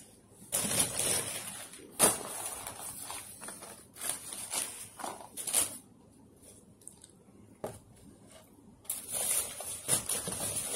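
Paper fast-food packaging rustling and crinkling in three bursts as it is handled, with a sharp knock about two seconds in.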